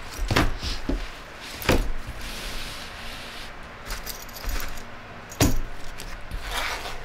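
Canvas travel bag being handled: several sharp knocks and clinks of its metal fittings, with fabric rustling between them.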